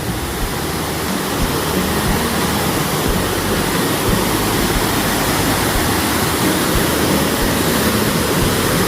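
Bald River Falls, a waterfall, rushing steadily: a loud, even noise of falling water.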